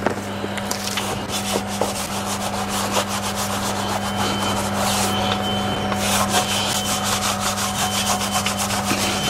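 A wheel brush scrubbing inside an alloy wheel's barrel in quick, repeated strokes. A steady low hum runs underneath.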